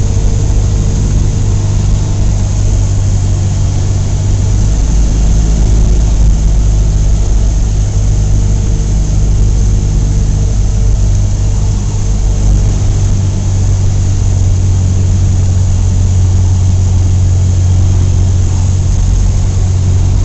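Cessna 172's piston engine and propeller running with a steady drone, its note shifting slightly a few seconds in and again about two-thirds of the way through.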